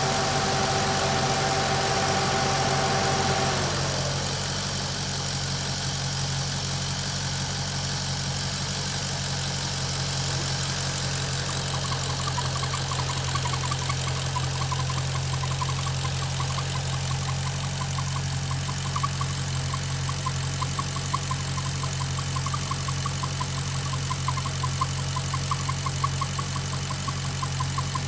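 Maserati GranTurismo V8 idling hot with a fast, light rhythmic ticking that comes in about twelve seconds in: the strange noise the owner hears only at idle at operating temperature, and not when cold or with the oil dipstick pulled. A steady whine over the idle falls away and stops about three and a half seconds in.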